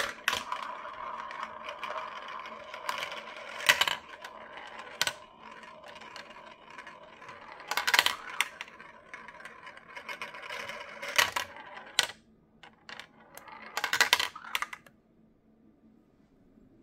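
Marbles rolling and rattling down a translucent plastic marble run, whirring around the spiral and funnel pieces, with sharp clicks as they drop from piece to piece. The rolling stops about fifteen seconds in.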